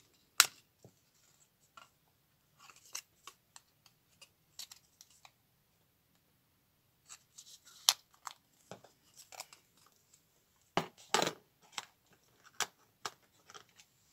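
Metal staples being pried out of cardstock file-folder strips with a small metal tool: scattered clicks, small scrapes and paper rustles, with a sharp click about half a second in and a louder scraping crunch about eleven seconds in.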